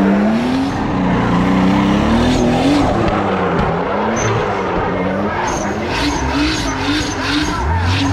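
A drift car's engine revving hard as the car slides sideways through a hairpin, its pitch swinging up and down again and again as the throttle is worked, with the tyres skidding.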